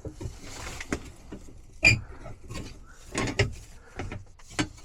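Scattered light clicks and knocks of hand tools on metal in an electrical disconnect panel, including one sharp ringing click about two seconds in.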